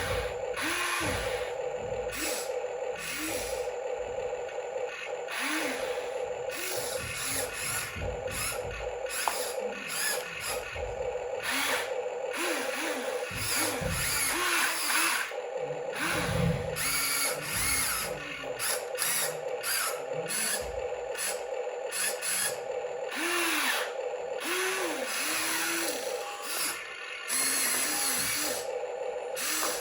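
Small electric motors and plastic gearboxes of a radio-controlled model working, whining up and down in pitch in short spurts over a steady hum, with ratcheting gear clicks.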